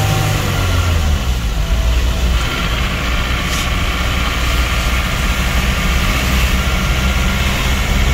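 Car engine and road noise heard from inside the cabin while driving, a steady low drone; about a second in the engine note drops lower.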